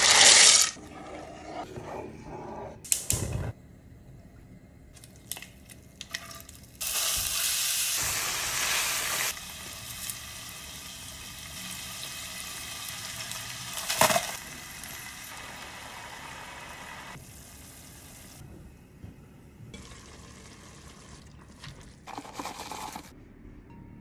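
Home-cooking sounds: dry orecchiette pasta rushing from its box into a pot at the start, then sausage and broccoli sizzling in a frying pan, loudest for about two seconds before settling to a steady sizzle, with a sharp knock partway through. Scattered clicks and rustles of utensils and food follow near the end.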